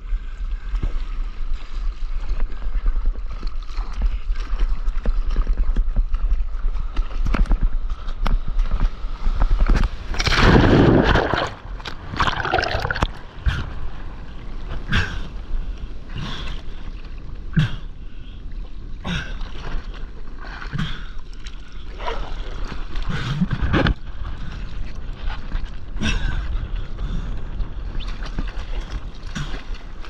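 Seawater splashing and rushing around a surfboard in breaking surf, with a steady low rumble of wind buffeting the microphone. A loud rush of whitewater lasts about a second and a half roughly a third of the way in, and short sharp splashes come every second or two.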